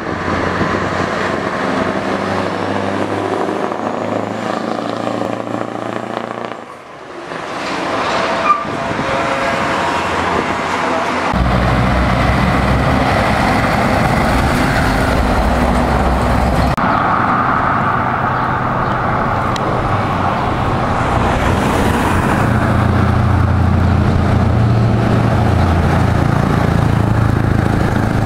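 Scania V8 trucks with straight-piped exhausts, a 164 and an R-series among them, driving past and pulling away in several separate takes. The exhaust note is steady and deep, dips briefly about seven seconds in, and turns heavier and lower from about eleven seconds on.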